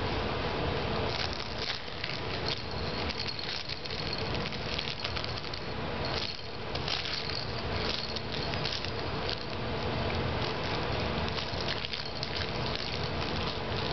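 Plastic rings and fabric of a plush elephant toy rustling and clicking as a baby grabs and tugs at them, a busy run of small clicks and rattles. A faint steady hum runs beneath.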